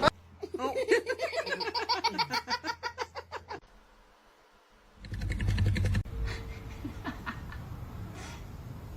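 Hearty laughter in quick repeated pulses for about three and a half seconds, breaking off into a moment of silence. After the silence comes a short burst of low rumbling noise, then quieter background noise.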